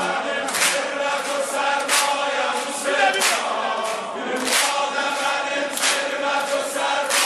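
Shia devotional song (noha/mersiye) in Azerbaijani, in a wordless stretch between verses: a group of male voices chanting together over a steady beat struck about every two-thirds of a second.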